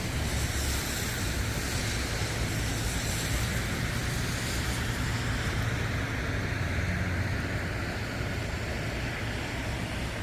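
Steady rushing noise of heavy rain, with a low wind rumble on the microphone.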